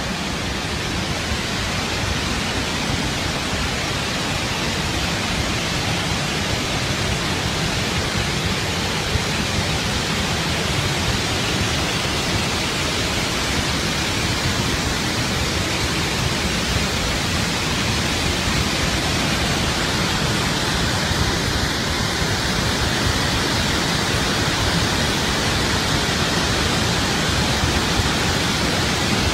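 Tarbela Dam spillway discharging floodwater in an emergency release: a loud, steady rush of water that does not let up.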